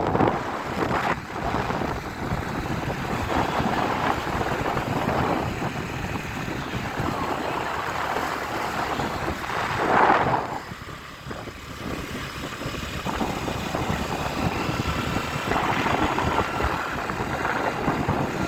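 Wind buffeting the microphone on a moving motorcycle, with road noise beneath it and a louder gust about ten seconds in.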